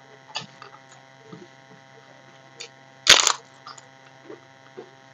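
Fried papad crackling once, loud and brief, about three seconds in, among small clicks of hand-eating and chewing from steel plates, over a steady electrical hum.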